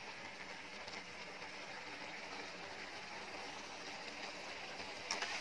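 Chicken pieces in sauce sizzling and bubbling in a metal wok, a steady hiss, with a couple of sharp clicks near the end.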